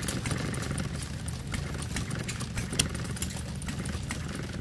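Small scale-model gas engine running, with sharp clicks about twice a second over a steady low rumble.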